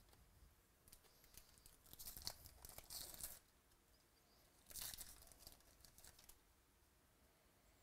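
A foil trading-card pack wrapper of 2018 Bowman Baseball being torn open and crinkled by hand. It comes faintly in two spells, about two seconds in and again about five seconds in.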